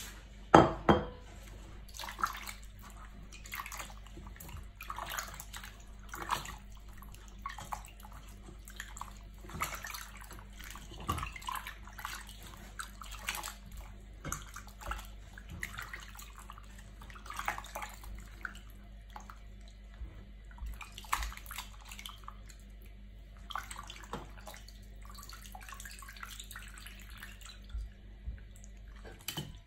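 Raw mutton pieces being washed by hand in a pot of water: irregular sloshing, splashing and dripping as the chunks are stirred and squeezed. A sharp knock about half a second in is the loudest sound, over a faint steady low hum.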